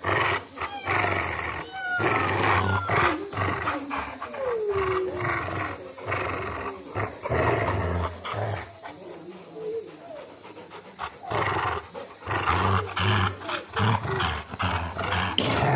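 A Rottweiler and a yellow Labrador play-fighting, mouth-wrestling with growls and grunts in irregular bursts. A falling whine comes about four seconds in.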